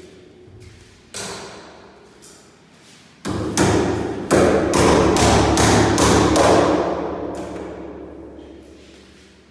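Wooden-handled hammer striking the top edge of a hung wooden door: a single knock about a second in, then a quick run of blows, about three a second, from about three seconds in to about seven, ringing on in the bare room.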